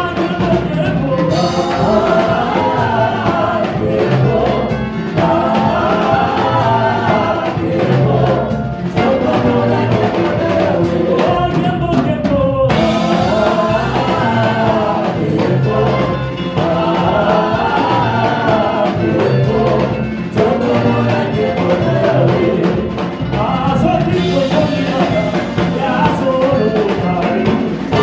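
Gospel worship music: a group of singers over a band with a steady beat.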